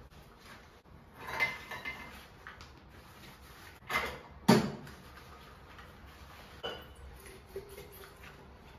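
Glass storage jars being handled and washed by rubber-gloved hands at a stainless steel sink: scattered rubs and clinks of glass, with one sharp knock about halfway through as something is set down hard.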